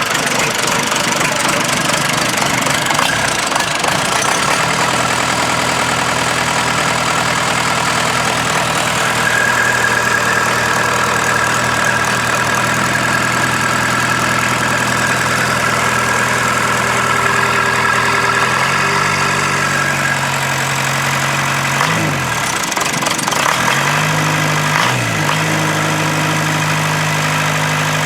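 Rebuilt Case 207D four-cylinder diesel engine running, holding a steady speed, then raised a little past the middle. In the last part it is revved down and back up twice, and it drops back near the end.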